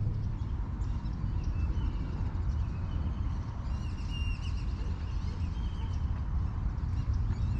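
Birds calling with short, high, squeaky whistles, thickest about four seconds in, over a steady low rumbling noise.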